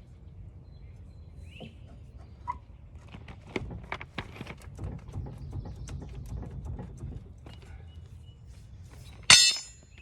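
Irregular knocks and clunks from a skid steer's worn track undercarriage being worked back and forth, the assembly rocking loose on its torsion axle beams: a sign of worn-out parts inside. A loud metallic clank with a ringing tone comes near the end.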